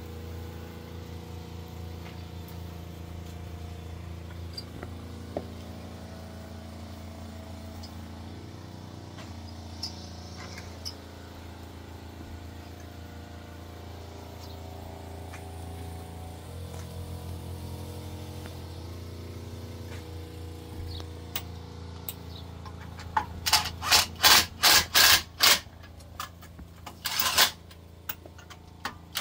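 Cordless impact wrench on a car wheel's lug bolts, firing in a quick string of short bursts for about two seconds, then one more burst near the end. Before that there is only a steady low hum.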